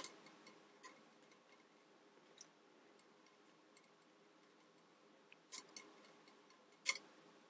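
Mostly quiet, with a few faint sharp clicks of small plastic model-kit parts being snapped off a sprue: one about a second in and two more near the end.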